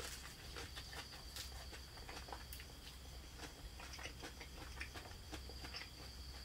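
Close chewing of fresh leafy food: soft, irregular wet mouth clicks and small crunches, mixed with the light rustle of leaves being picked and torn by hand.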